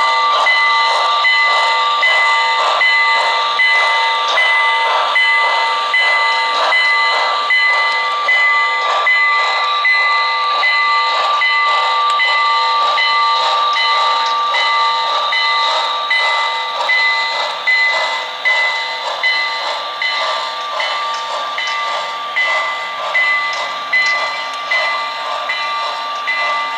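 Model steam locomotive's sound system chuffing steadily, with a steady high whine underneath, as the locomotive and its cars roll past on the track. The chuffs come more slowly and stand out more clearly in the second half.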